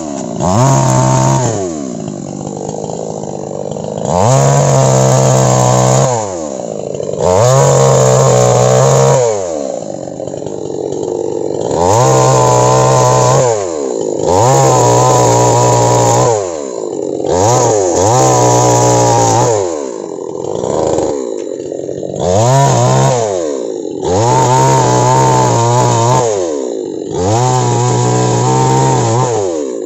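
Two-stroke chainsaw cutting through oil palm frond bases. It revs to full throttle for cuts of about two seconds each, over and over, and drops back toward idle in between.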